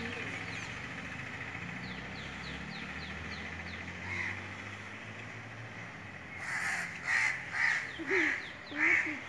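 A crow cawing: one harsh caw about four seconds in, then about five caws in quick succession, roughly two a second, near the end.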